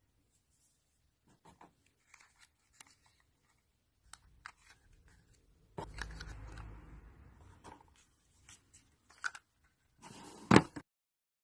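Small plastic toys being handled: light clicks and rustles of miniature food boxes going into a small plastic toy shopping basket, with a longer scraping rustle about six seconds in and a louder plastic clack near the end.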